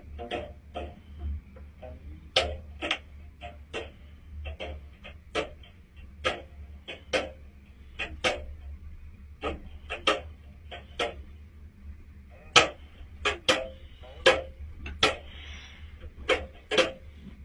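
A long run of sharp clicks, irregularly spaced at a little over one a second, over a steady low hum.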